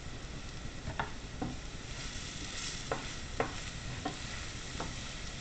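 Food sizzling in a frying pan while a dog barks in short, sharp yips, several in a row at uneven gaps, which the owner puts down to the dog seeing a cat outside.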